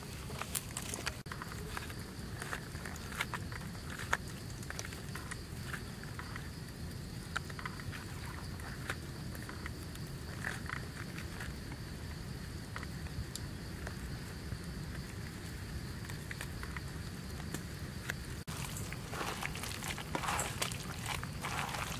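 Soft wet taps and squishes of hands laying and pressing pieces of cooked fish roe into a pan of thick sauce, with a faint steady high-pitched hum underneath. In the last few seconds the handling becomes busier as the hands mix the pan.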